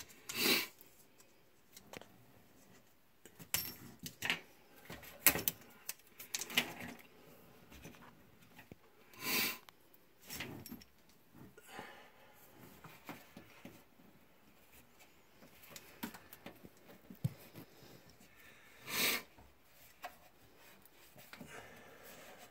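Scattered light clicks and knocks from handling a water supply hose's threaded coupling at a washing machine's hot water inlet, with a few short rasps about 9 and 19 seconds in.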